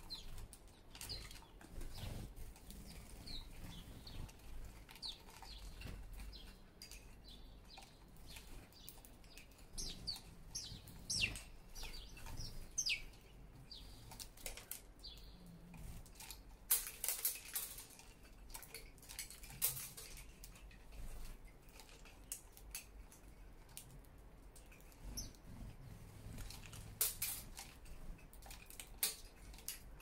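House sparrows at a wooden balcony seed feeder: scattered short chirps, soft clicks of pecking at seed, and several brief wing flutters as birds land and leave, louder about halfway through and again near the end. A low city rumble runs underneath.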